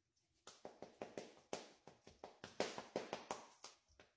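A quick run of sharp hand snaps and taps, about five a second, starting half a second in.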